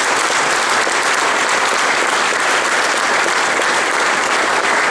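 An audience applauding: steady clapping from many hands.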